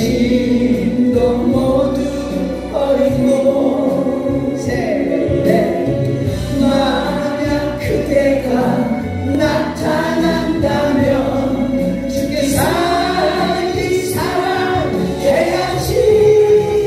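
A group of people singing a song together over its accompaniment backing track.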